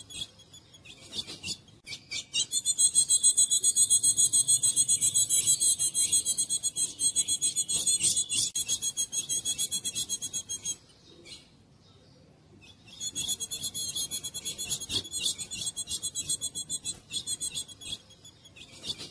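Female ultramarine grosbeak (azulão) giving a fast, rasping chatter of rapid clicks. A short burst near the start is followed by a long bout of about eight seconds, a pause of about two seconds, and a second bout of about six seconds.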